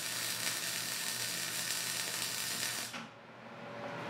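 MIG/MAG welding arc on steel plate, crackling steadily as the wire feeds into the weld pool; the arc stops about three seconds in.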